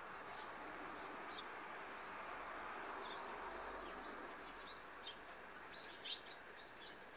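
Eurasian tree sparrows chirping: short, scattered chirps that come thicker and louder in the second half, over a steady background hiss.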